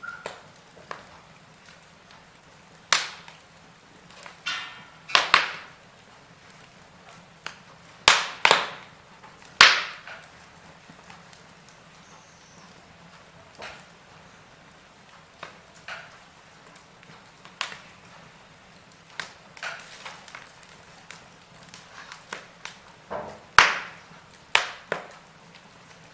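Wood fire burning in a fireplace, crackling: irregular sharp pops and snaps, some in quick clusters, over a faint steady hiss.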